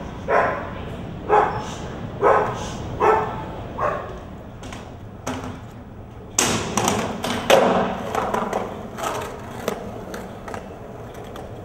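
A dog barking about once a second for the first four seconds. About six seconds in, a skateboard lands hard on the metal median between escalators and runs down it with a clattering, ringing rumble that fades out.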